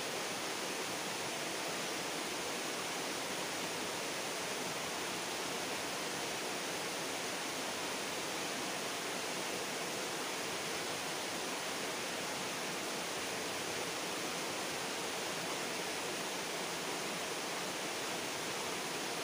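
Steady rushing of flowing stream water, an even hiss that does not change.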